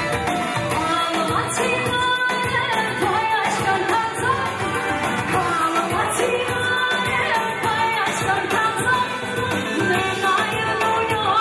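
A woman singing a wavering melody through a microphone over loud amplified dance music with a steady beat.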